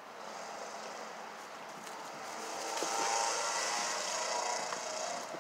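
Traffic going over the road bridge overhead: a vehicle's tyre and engine noise swells to a peak about three seconds in and then eases off, over the steady rush of a shallow stream.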